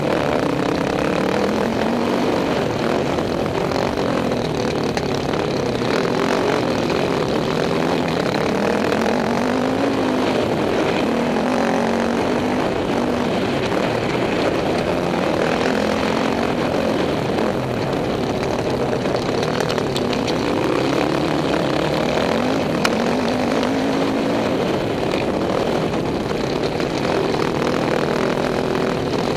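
Dirt bike engine under way, its revs rising and falling over and over as the rider accelerates, shifts and backs off through the corners, over a constant rush of wind and noise.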